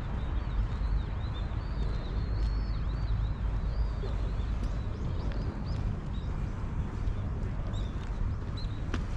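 Small birds chirping in many short, quick calls over a steady low rumble, with a single sharp click near the end.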